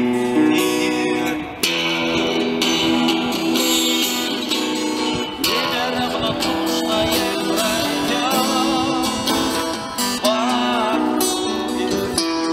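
Steel-string acoustic guitar strummed, chords ringing on in an instrumental passage of a song.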